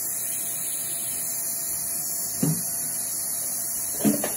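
Dental suction running with a steady hiss and hum, and two short louder sounds, about two and a half and four seconds in.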